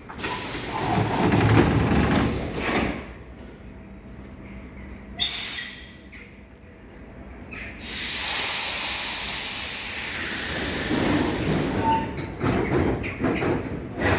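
Compressed-air hissing and door sounds from a DDB1 diesel train as its doors close: a hiss in the first few seconds, a short sharp hiss about five seconds in, and a long hiss from about eight to twelve seconds, followed by a few knocks near the end.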